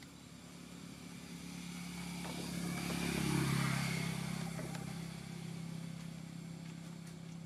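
A motor vehicle passing by: its engine hum grows louder to a peak about halfway through, then fades away.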